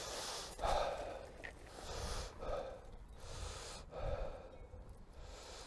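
A person breathing heavily, with a breathy exhale about every second and a half.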